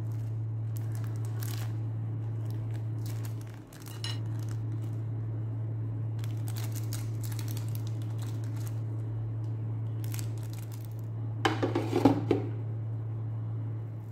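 A glass lid clatters down onto an electric pizza pan with a short cluster of knocks about twelve seconds in. Before it come light rustling of a plastic bag and small clicks of toppings being placed, over a steady low hum.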